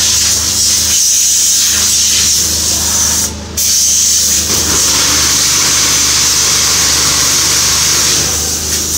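Water spraying from a hose onto a road bike: a steady hiss that breaks off briefly about three seconds in, over a steady low motor hum.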